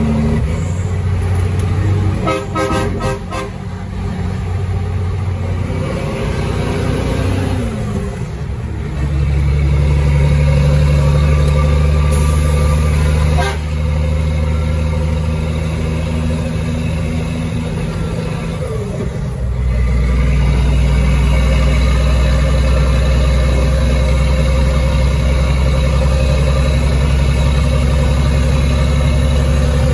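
Caterpillar 3306 inline-six diesel in a heavy truck, running under load. Twice the engine note slides down and then comes back louder and steadier, about a quarter and about two-thirds of the way in, as when the truck is shifted up through its gears.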